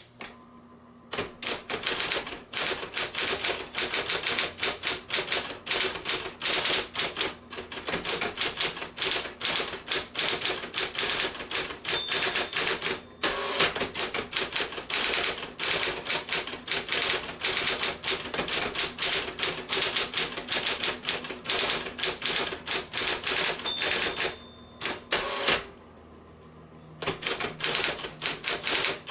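Sears Celebrity Power 12 (Smith-Corona built) electric typewriter typing in fast runs of key strikes over the hum of its motor. A short ringing tone comes twice, near the middle and about three quarters through, each followed by a brief pause in the typing.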